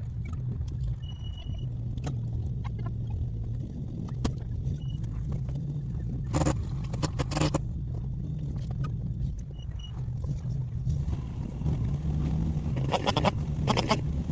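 An engine running steadily at idle, with short clusters of clicking or crackling about halfway through and again near the end.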